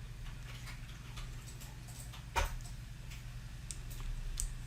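Small plastic Mega Construx bricks clicking and tapping as they are handled and pressed together, a scatter of light clicks with one sharper click about two and a half seconds in.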